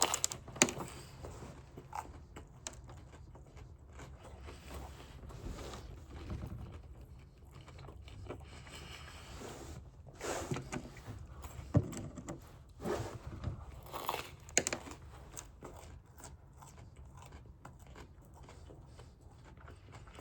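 A person biting and chewing a glazed donut topped with Fruity Pebbles cereal, close to the microphone, with a few louder bites about halfway through.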